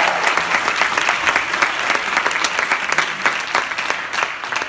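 Audience applauding, a dense patter of many hands clapping that begins to die down near the end.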